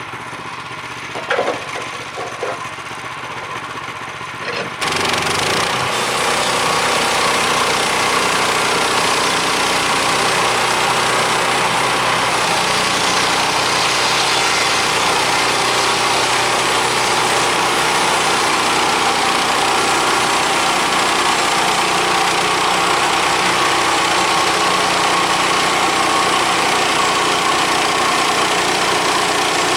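Portable bandsaw mill's gasoline engine idling with a few knocks, then throttled up suddenly about five seconds in and running steadily at high speed.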